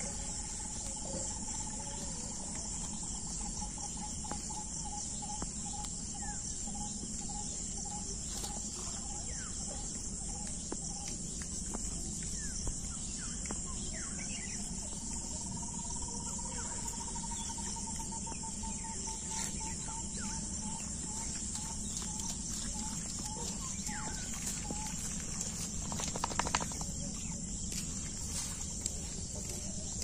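Steady high-pitched insect chorus, crickets shrilling without a break, while a bird calls twice, each call a run of short repeated notes that lasts about ten seconds. A brief patter of clicks comes near the end.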